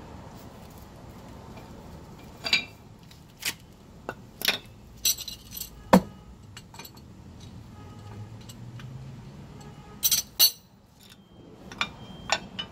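Irregular sharp metallic clinks and clicks, about a dozen, as a brake caliper, brake pads and hand tools are handled and knocked together. The loudest clink comes about six seconds in, with a close pair near ten seconds.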